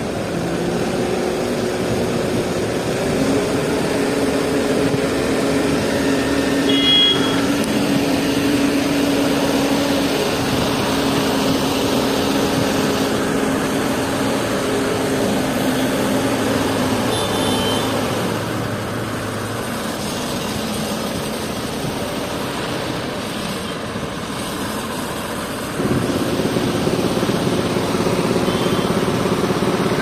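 Diesel engine of a mobile crane running steadily under load while lifting a precast concrete bridge girder. It gets louder about four seconds before the end.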